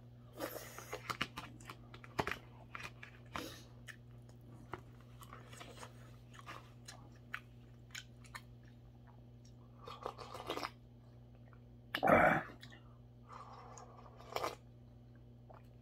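Close-up eating sounds: a metal spoon clicking and scraping in a plastic container, and chewing and smacking of mackerel rice porridge. Near the end there are a few louder mouth sounds as he drinks from a bowl.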